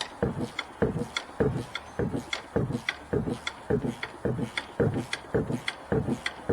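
Hand ratchet wrench worked back and forth in long strokes, its pawl clicking in a steady rhythm of about three strokes a second as a nut is run down.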